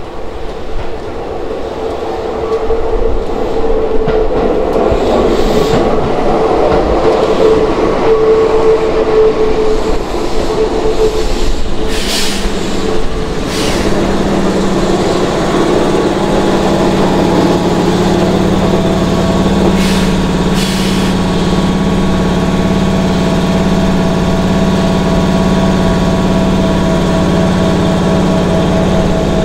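Keihan electric commuter train pulling into the station and coming to a stand, with a steady high whine over the running noise. Two short hisses come about twelve and thirteen seconds in. The standing train then gives a steady, pulsing hum from its underfloor air compressor.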